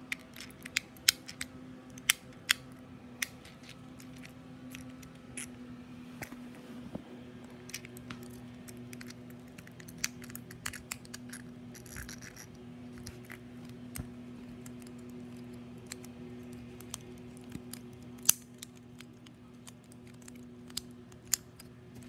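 Plastic fidget cube being clicked: its buttons and switch give sharp, irregular clicks, a quick cluster in the first few seconds, then scattered ones, with a loud one later on. A steady low hum runs underneath.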